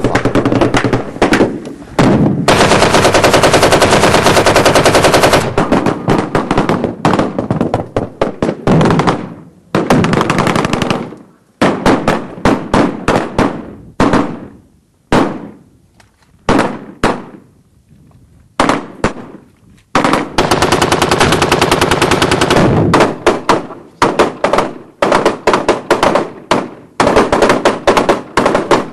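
Automatic gunfire: long rapid bursts of machine-gun fire, thinning in the middle to scattered single shots and short bursts that trail off, then another long burst about two-thirds of the way through.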